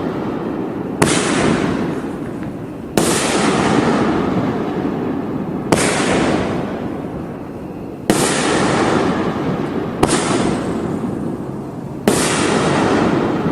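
A 9-shot 3-inch fireworks cake firing in sequence: six loud bangs about every two seconds, each followed by a long fading crackle from the strobe effects.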